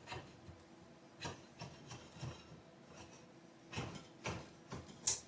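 Hand tool scraping and shaving wood from an axe handle in short, irregular strokes, with a sharper crack near the end as a big chunk of wood comes off.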